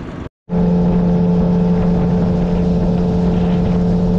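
Fishing boat's outboard motor running at a steady speed as the boat travels across the lake, one unchanging engine tone. It cuts in after a brief silence near the start.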